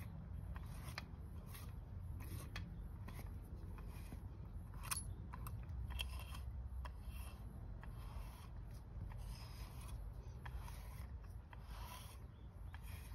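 Green deshedding brush drawn again and again through a cat's fur, each stroke a short rasping scrape, as burr seeds are combed out of the coat. A sharp click stands out about five seconds in.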